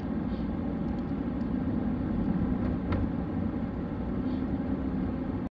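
A steady low rumble, with a few faint ticks over it, that starts and stops abruptly.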